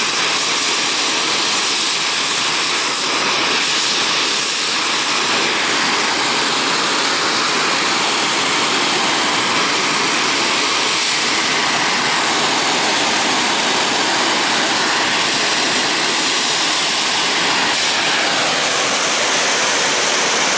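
Oxy-fuel cutting torch burning with a neutral flame, a loud steady hiss that does not change, as it heats an aluminum plate for brazing.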